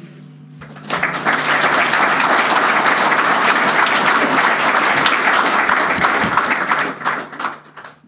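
Audience applauding, starting about a second in and dying away near the end.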